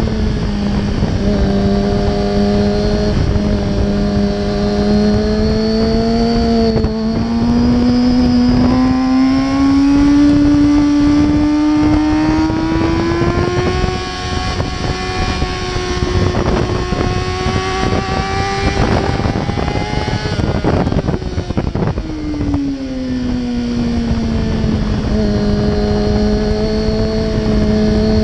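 Kawasaki sport motorcycle engine running under way, its note climbing slowly as the bike accelerates, holding steady, then easing off a little after twenty seconds and falling as it slows before settling again. Heavy wind buffeting on the microphone underneath.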